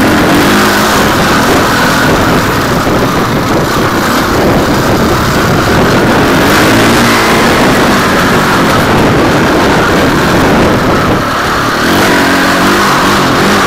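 Enduro dirt bike's engine running hard and revving up and down as the bike is ridden along a bumpy dirt track, heard from a camera mounted on the bike.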